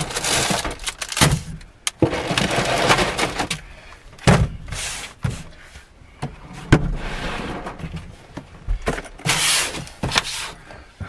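Plastic food packages being handled and set down on a folding aluminium camping table: crinkling and rustling of plastic with several sharp knocks and clunks.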